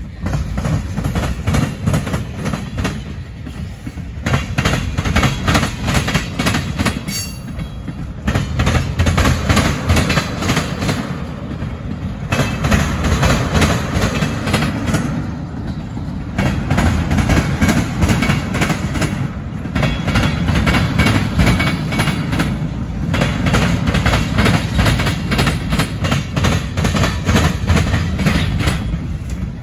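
Freight train of tank cars rolling past, steel wheels clacking rapidly over the rail joints and the diamond crossing over a low rumble. The clatter comes in loud runs with short lulls every few seconds as car after car goes by.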